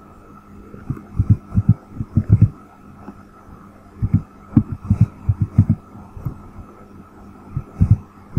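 Computer keyboard typing, the keystrokes heard as short low thuds in three bursts, over a faint steady hum.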